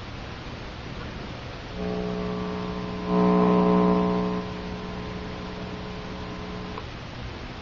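Low, steady electrical buzzing hum with many overtones from a 1980s General Electric clock radio cassette recorder's speaker. It starts about two seconds in, is louder for about a second in the middle, and cuts off suddenly near the end.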